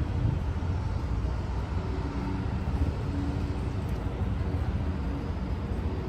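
City street traffic: a steady low rumble of vehicle engines, with a faint engine hum in the middle.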